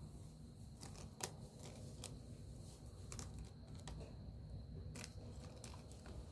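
Slime being handled, giving faint, irregular sticky clicks and small pops, about a dozen in six seconds.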